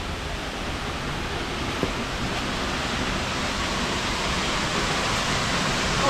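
Loud waterfall: a steady rush of falling water, growing slightly louder toward the end.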